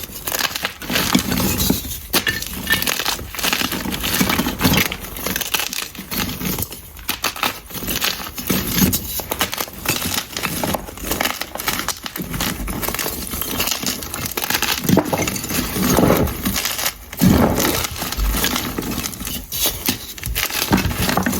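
Blocks of gym chalk being crushed and crumbled, a dense, uneven run of crisp crackles and crunches.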